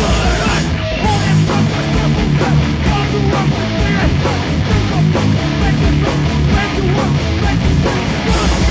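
Fast hardcore punk/powerviolence track played loud, with distorted electric guitar and dense, unbroken drumming.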